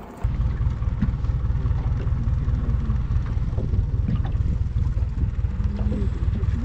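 Steady low rumble aboard a fishing boat out on the sea.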